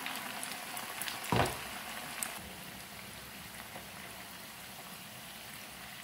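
Kakara pitha dumplings deep-frying in hot oil: a steady bubbling sizzle. A single knock about a second and a half in, from the wooden spatula against the pan.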